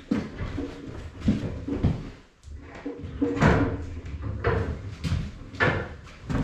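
Irregular knocks, bumps and scrapes of hands-on work, several to a second or so apart, with no speech.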